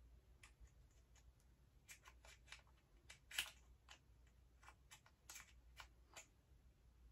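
Faint, scattered clicks and rustles of handling as a furry wind muffler is worked onto the top of a Sony ZV-1 compact camera. There are about a dozen short clicks, the sharpest about three and a half seconds in.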